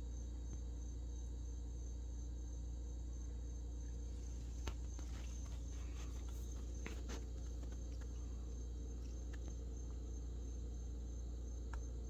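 A cricket chirping in a steady, evenly pulsed high trill over a low steady hum, with a few faint clicks and rustles about halfway through.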